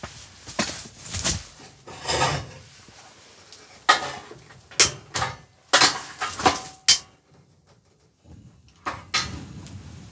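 Objects being handled and set down: a string of irregular knocks and clatters, about a dozen, one with a brief metallic ring a little past the middle.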